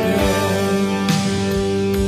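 Background music: a song track with sustained notes laid over the footage.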